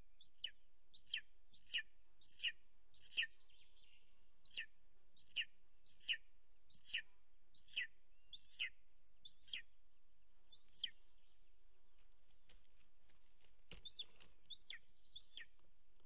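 Golden eagle calling: a series of high, thin, down-slurred whistled calls, about one and a half a second, pausing about ten seconds in and resuming near the end. A couple of sharp knocks in the nest sound between the calls.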